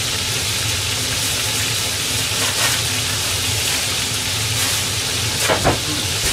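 Oil sizzling steadily as pieces of fish deep-fry in a frying pan. Two short knocks come near the end.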